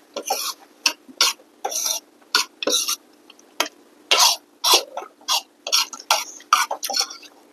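Close-up eating sounds of rice noodle soup: an irregular run of short, sharp slurps and sips, a couple or more each second.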